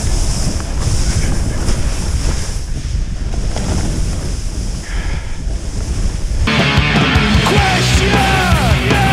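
Wind buffeting a helmet camera's microphone, with the rush of sliding down snow. About six and a half seconds in, heavy rock music cuts in abruptly.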